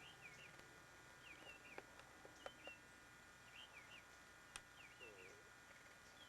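Faint songbird singing short whistled phrases with quick up-and-down pitch sweeps, about one phrase a second, with a few sharp faint clicks.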